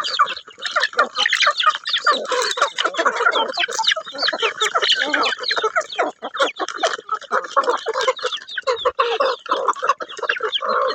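A flock of chickens clucking and chirping while feeding, with many short calls overlapping continuously.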